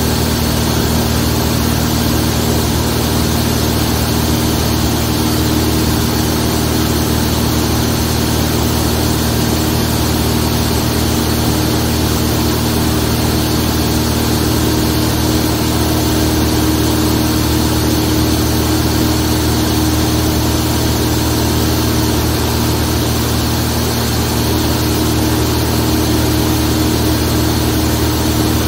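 Zlín 42 light aircraft's piston engine and propeller running steadily at a constant pitch.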